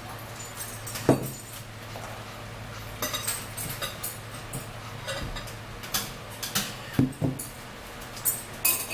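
A spoon and dishes clinking at a table, with several separate light knocks, one of them a bottle set down on the wooden tabletop.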